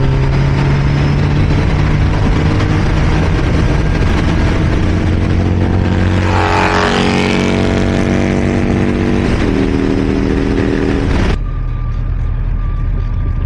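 Sportbike engine running steadily at road speed under heavy wind rush on the microphone. About two-thirds of the way through, its pitch steps up. Near the end the sound cuts abruptly to a duller, quieter engine hum.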